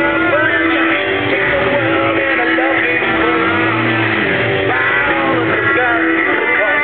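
Rock music with guitar and a singing voice, at a steady loud level.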